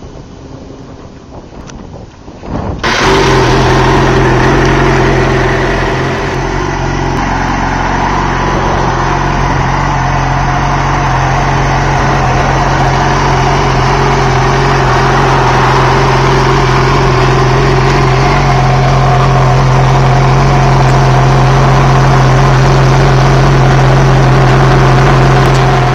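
A motorcycle engine, the 2007 Yamaha R6's inline-four, running steadily at idle. It comes in suddenly about three seconds in and holds an even, unchanging note.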